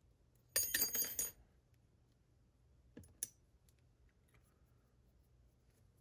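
Metal lockpicking tools clinking: a jangle lasting under a second about half a second in, then two light clicks around three seconds in.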